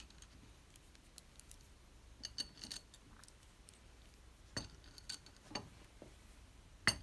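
Faint, scattered clicks and taps, about half a dozen spread over several seconds, as small white plastic spacers are pushed onto the tips of number 8 screws set through an aluminium frame rail.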